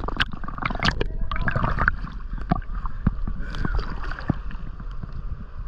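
Water splashing and sloshing close to the microphone, with scattered sharp knocks and clicks over a low rumble.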